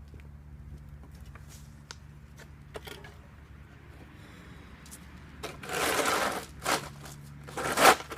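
Hand tool scraping and digging at sod and debris on a concrete slab, several loud scrapes in the last few seconds, over a steady low hum.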